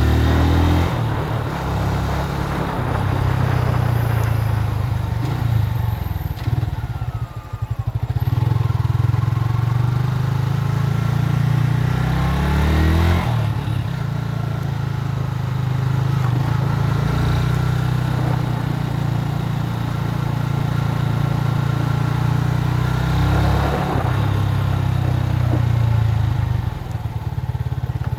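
Motorcycle engine running under way. The engine eases off and dips about seven seconds in, then picks up again with a rising pitch around thirteen seconds, and runs on at a steady pace.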